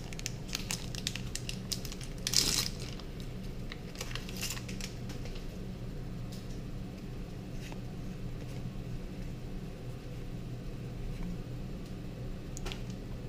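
Foil booster-pack wrappers and trading cards crinkling and rustling as they are handled. The handling is busiest in the first few seconds, with one louder crinkle about two and a half seconds in, then sparser small crackles. A steady low hum runs underneath.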